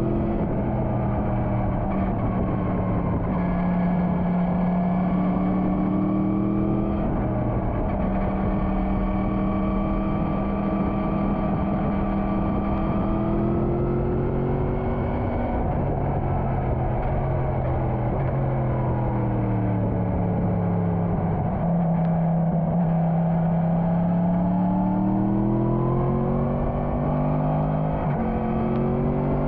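Motorcycle engine running under way, its pitch holding steady at first, then rising, sinking to a low about two-thirds of the way through and climbing again near the end as the rider speeds up and slows down.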